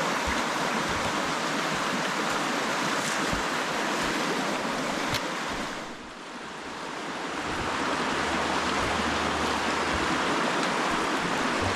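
River water rushing steadily, dipping briefly about halfway through and then building back up.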